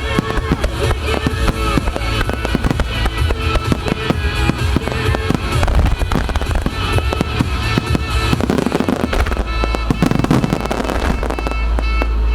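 A rapid barrage of fireworks bursts and crackles from a starmine finale, many shots a second, over music from loudspeakers. The bursts thin out near the end.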